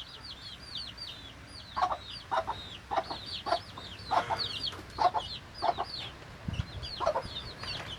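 Chickens clucking in short repeated calls, about two a second, over a continuous run of high, arching peeps like chicks peeping.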